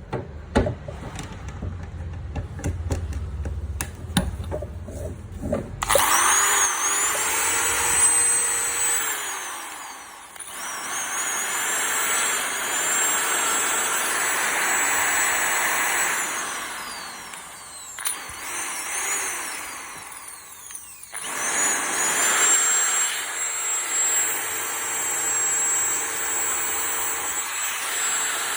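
Bosch handheld power tool motor. After a few seconds of clicking handling, it is switched on and whines up to a steady high-pitched speed, then runs down and is restarted several times.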